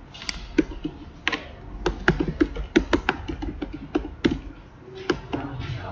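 Computer keyboard being typed on: quick, irregular key clicks.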